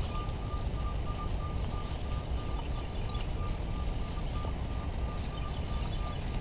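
A short high beep repeating evenly, about three times a second, over a steady low outdoor rumble.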